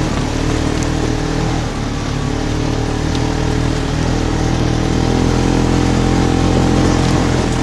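Polaris RZR side-by-side's engine running at a steady speed, its pitch holding level, over a rushing noise.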